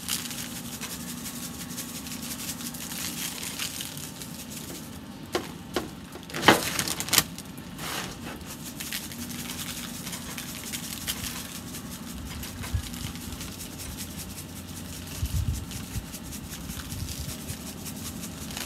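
Dry-rub seasoning shaker being shaken over beef ribs, the granules rattling in the bottle and scattering onto the meat, over a steady low hum. A few sharper knocks come about six to seven seconds in.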